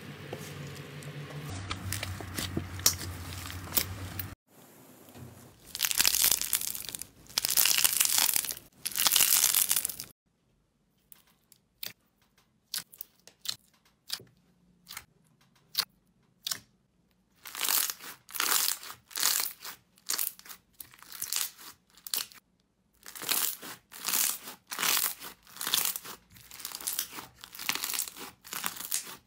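Slime being stretched, pressed and squeezed by hand in a series of short takes. First comes a dense crackle of fine clicks, then three long noisy stretches, then scattered sharp little pops. From about two-thirds of the way in there is a steady run of squishing presses, somewhat more than one a second.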